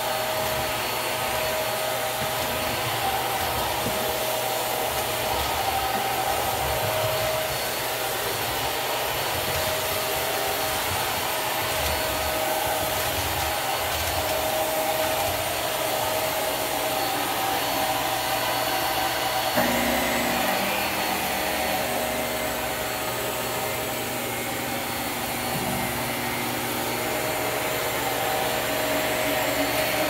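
Hart Pro bagless upright vacuum cleaner running steadily as it is pushed over a tile floor. About two-thirds of the way through its sound changes, with a lower hum joining in.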